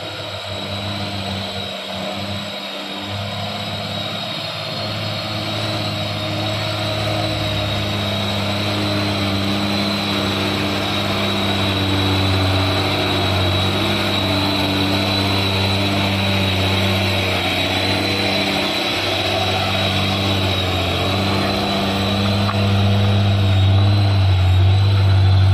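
Hino 500 truck's diesel engine pulling steadily under load up a slippery mud slope, growing louder as the truck comes up close and passes by, loudest near the end. A steady high whistle runs alongside the engine.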